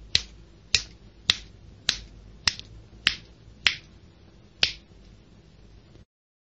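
Eight sharp finger snaps, about two a second, with a longer pause before the last.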